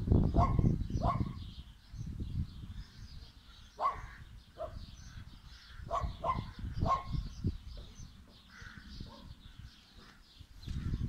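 Short animal calls from a distance, about eight of them, mostly in a cluster in the middle. A low rumble sits at the very start and end.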